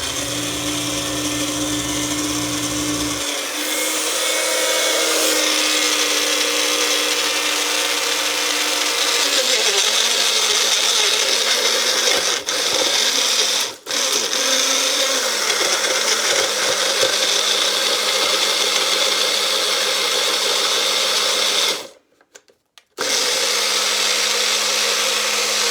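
Blender running on a thick mix of frozen pineapple and pineapple juice, its motor tone dropping in pitch partway through. It cuts out briefly twice, then stops for about a second near the end and starts again.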